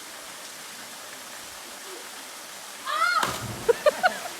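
Waterfall and stream water rushing steadily. About three seconds in, a loud, brief, high-pitched call or shout cuts through, followed by a few short high calls.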